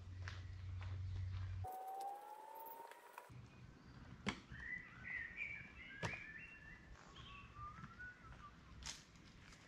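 A bird singing: a single rising whistled note about two seconds in, then a run of short warbled phrases from about four and a half to eight and a half seconds. A few footsteps knock on the path, spaced a couple of seconds apart.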